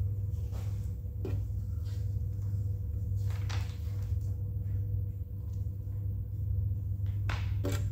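Steady low hum with a handful of short clicks and clatters of plastic Lego Technic pieces being handled during the build.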